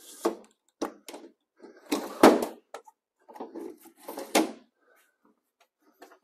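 Plastic drop-in pickup bedliner being shifted and handled in the truck bed, giving a series of separate knocks, clunks and scrapes. The loudest are about two seconds in and again about four seconds in.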